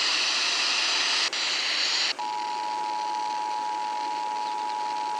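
About two seconds of hiss from the radio. Then the Emergency Alert System's two-tone attention signal starts: a steady tone of two pitches sounding together, marking the start of a required monthly test.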